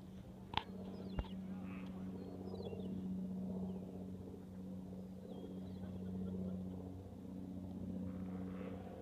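A steady low mechanical hum, like an engine running out of sight, with two sharp clicks about half a second apart near the start and a few faint bird chirps.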